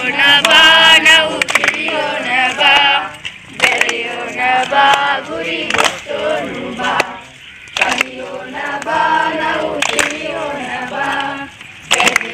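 A group of young men and women singing together in chorus, in phrases of a few seconds with short breaks between them, and a few sharp knocks in between.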